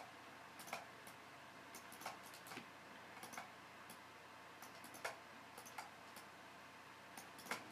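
Faint computer mouse clicks, about ten at uneven intervals, over a low steady hiss.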